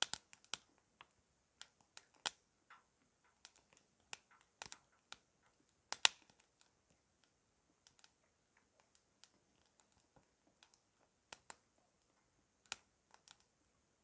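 Small wood fire in a hobo stove crackling, with scattered sharp pops at irregular intervals, the loudest about six seconds in.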